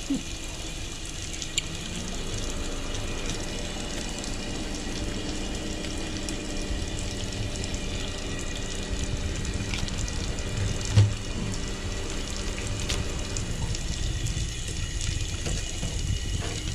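Running water from a tap or hose, a steady rushing with a faint hum under it, and a few small clicks and one knock about eleven seconds in.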